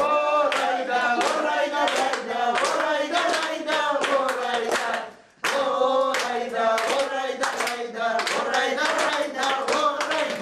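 Several voices singing a song together to steady hand clapping, about three claps a second. The sound cuts out for a moment about five seconds in, then the singing and clapping resume.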